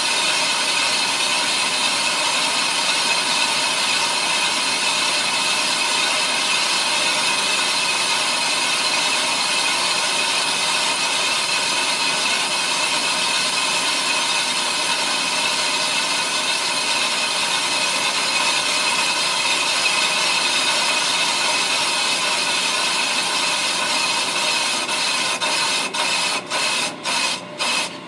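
Ammco brake lathe cutting a brake drum: a steady scraping hiss from the cutting bit over the hum of the machine. About 25 seconds in the sound starts breaking up into pulses about twice a second, the sign that the bit has nearly cut all the way across and the drum is pretty much done.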